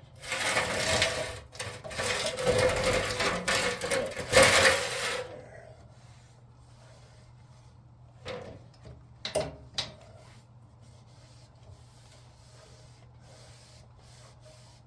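Rubbing and scraping for about five seconds, then a few short knocks.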